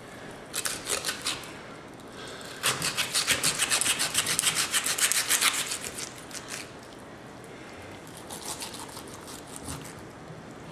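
Serrated knife sawing through a raw chicken's rib bones along the backbone, in quick back-and-forth strokes. A few short strokes come about a second in, then a fast, louder run of strokes lasts about three seconds, easing into quieter cutting.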